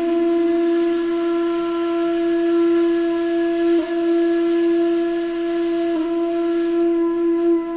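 One long, steady note on a wind instrument, held at a single pitch with two slight wavers about four and six seconds in.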